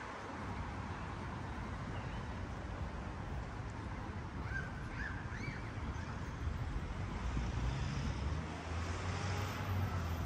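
City street traffic running steadily beside the walkway, with a low rumble growing louder in the second half as a vehicle passes. A few short high chirps come about halfway.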